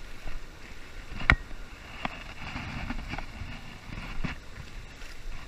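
Steady rush of river water spilling over a low dam, with wind buffeting the microphone. A sharp click about a second in, with a few fainter clicks later.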